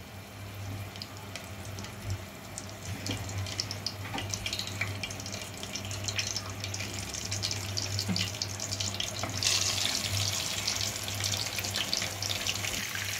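Leather jacket fish shallow-frying in hot oil: scattered crackling and spitting that turns into a denser, louder sizzle about nine and a half seconds in, as another piece of fish goes into the pan. A low steady hum runs underneath.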